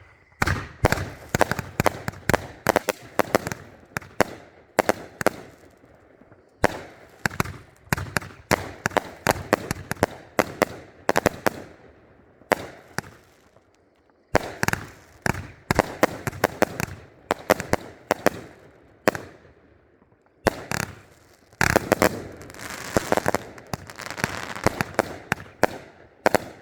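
Three 500 g consumer firework cakes firing at once: a rapid, irregular barrage of shots and bursts, with short lulls about six and fourteen seconds in and a dense flurry near the end.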